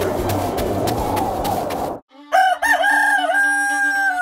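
A rooster crowing once: a long held call that wavers at the start and then holds steady, coming in a little over two seconds in after a brief drop-out. Before it, a noisy background with scattered clicks.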